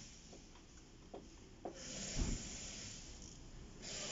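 Light clicks and handling noise as plastic front-end parts and fasteners are worked loose by hand, with a dull thump about two seconds in and stretches of hiss.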